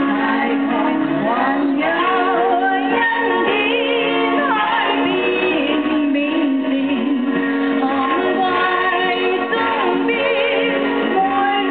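A woman singing a slow song with vibrato on the held notes, over instrumental accompaniment of sustained chords.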